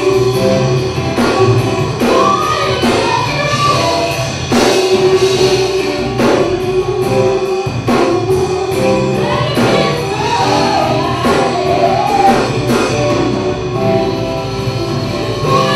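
Live band playing a song: a woman singing lead with women's backing vocals, over electric guitar, keyboards and a drum kit.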